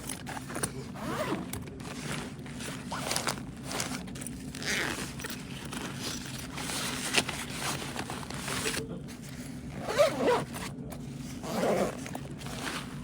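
Zippers on a fabric backpack pulled in irregular strokes, with scraping and rustling as the bag is handled, over a steady low hum.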